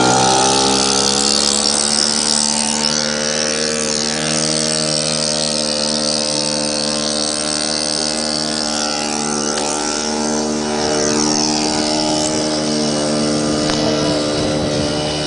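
Sears Gamefisher 3 hp two-stroke outboard motor running steadily under way, pushing a 12 ft boat. Its pitch settles in the first second or two, then holds even.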